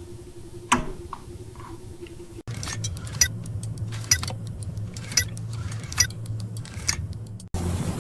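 Small machines humming, with sharp metallic clicks and clinks about once a second. The sound changes abruptly twice: a steady higher hum with a single click and short ringing tones, then a lower hum with repeated clinks, then a noisier rumble.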